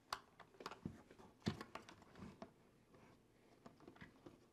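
Faint scattered clicks and taps of hard plastic as hands fit light-kit parts into a TRX-4M Bronco's body shell; the sharpest click comes about a second and a half in.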